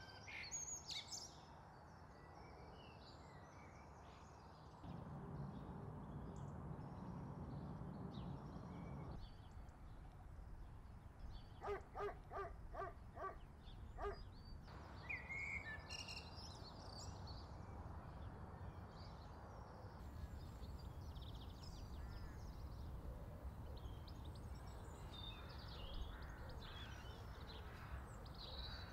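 Quiet outdoor ambience: scattered birds chirping and singing over a low, steady background rumble. Midway there is a quick run of about six short, evenly spaced calls.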